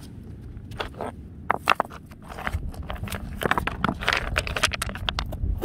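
River pebbles clicking and scraping against one another as a gloved hand digs through gravel and sand. A run of sharp clacks, a few at first, then busier from about halfway through.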